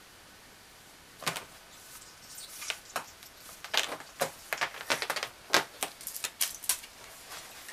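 A cat's claws scratching and scrabbling at sofa upholstery: irregular quick scratchy clicks and scrapes, starting about a second in and thickening toward the end.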